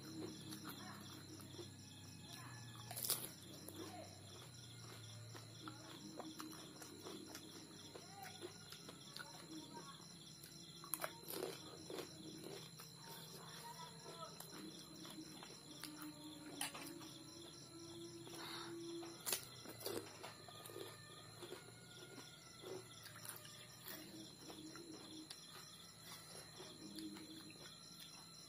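Quiet eating of pani puri: hollow puri shells cracked open and crunched, with a handful of sharp clicks. A steady high-pitched whine runs underneath.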